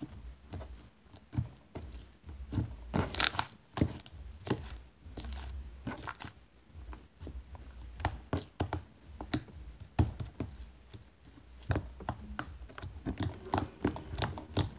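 Sticky slime being kneaded, stretched and pressed by hand on a tabletop, giving irregular wet clicks and crackly pops as it clings to and tears from the fingers, a few louder ones about three seconds in and near ten seconds.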